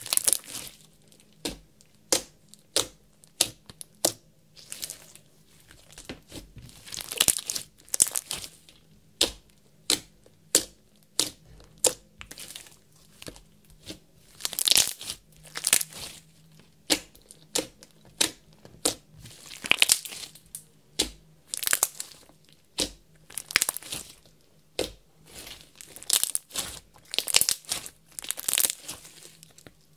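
Slime being pressed, folded and stretched by hand, giving sharp wet clicks and crackling pops, with denser crackly bursts every few seconds.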